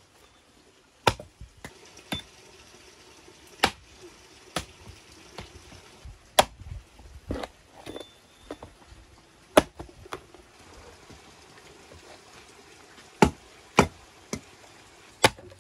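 Hatchet chopping through a skinned cow head into a wooden stump chopping block: a dozen or so sharp, uneven chops, with a pause of a few seconds before the last strokes.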